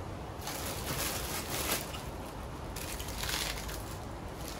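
Dry crackling and rustling from food or its packaging being handled, in two stretches: one of about two seconds, then a shorter one.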